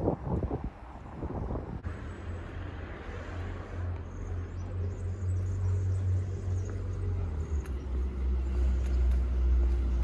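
A motor vehicle's engine giving a steady low hum that grows louder and drops in pitch a few seconds before the end, with wind buffeting the microphone in the first second or so.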